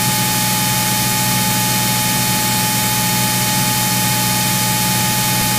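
Steady in-flight cockpit noise of a Cirrus SR22 in cruise: an even engine and propeller drone under a hiss, with a thin high tone held level.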